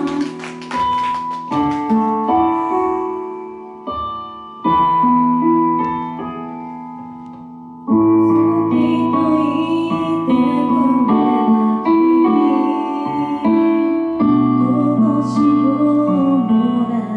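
Female vocalist singing a slow ballad into a microphone over piano accompaniment, the piano chords ringing out and fading between phrases. Applause dies away in the first couple of seconds, and the voice and piano grow fuller from about eight seconds in.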